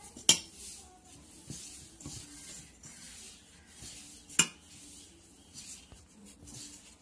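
A hand rubbing murukku flour together with hot melted butter and oil in a stainless-steel bowl: soft rustling of the flour, with two sharp clinks against the steel bowl, about a third of a second in and again about four seconds in.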